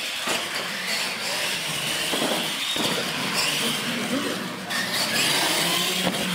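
Radio-controlled monster trucks racing flat out across a concrete floor: a high motor-and-gear whine that rises and falls in pitch with the throttle, over the rumble of big tyres on the slab.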